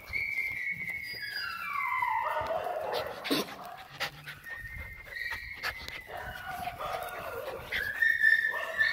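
Young dogs whining. One long whine falls slowly in pitch over the first couple of seconds, shorter whines follow, and a louder high whine comes near the end.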